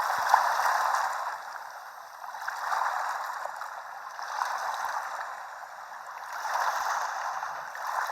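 Recorded beach-waves sound from a white-noise app, played through a phone's speaker: a hiss of surf swelling and fading about every two seconds, thin and without bass.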